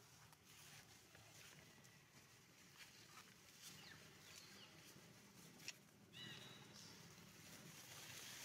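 Faint, near-silent forest-floor ambience: soft rustles and light clicks of dry leaf litter, with a few short, high, falling chirps about six seconds in.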